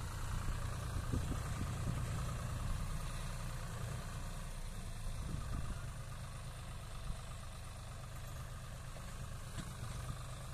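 John Deere tractor's diesel engine running steadily as it pulls a heavily loaded trolley over rough ground. The engine grows gradually fainter as the tractor moves away.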